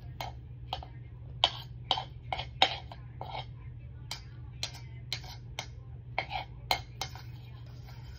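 Eating sounds close to the microphone: an irregular run of about fifteen short, sharp clicks and smacks from mouth and utensils, over a steady low hum.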